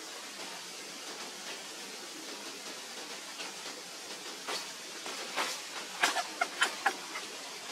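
Steady hiss, with a run of short, sharp clicks and squeaks from about four and a half seconds in, thickest and loudest between about six and seven seconds.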